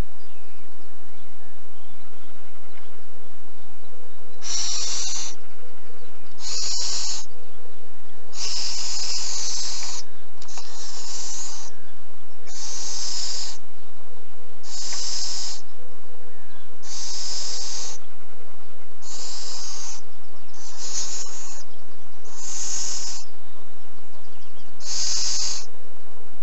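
Little owl owlets giving repeated rasping hisses, the chicks' food-begging call: about eleven short, high-pitched hisses roughly every two seconds, starting about four seconds in.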